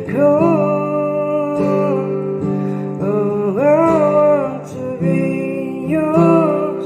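Slow love ballad: a voice holding long, gliding notes over strummed acoustic guitar.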